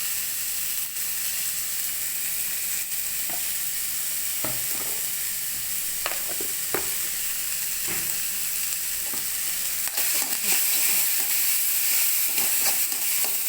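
Vegetables and spices frying in hot oil in a kadhai, a steady sizzle that grows louder about ten seconds in. A spatula knocks and scrapes against the pan a few times as the mixture is stirred.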